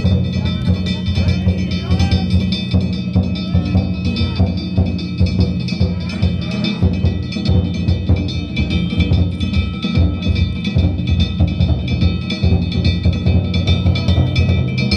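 Danjiri float music (narimono): taiko drums struck in a fast, continuous rhythm with ringing kane gongs clanging over them.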